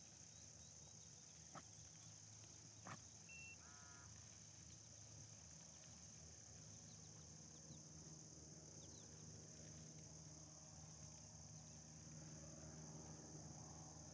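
Near silence with a faint, steady, high-pitched insect drone. There are a couple of faint clicks in the first three seconds and a brief faint call about four seconds in.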